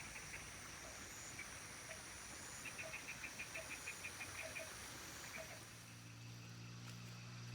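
Faint insects and crickets in vegetation: a steady high-pitched drone, with a run of quick chirps a little under halfway through. A faint low hum comes in about six seconds in.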